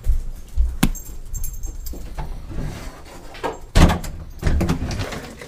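Light metallic jingling and handling knocks as a closet door is opened, with a louder thump a little under four seconds in.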